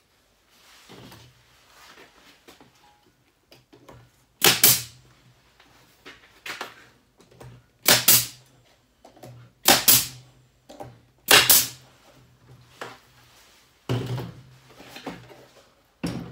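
Pneumatic brad nailer driving 2-inch wire brads into the wood of a box: about five sharp shots, one every two seconds or so, with lighter knocks of the wood being shifted between them.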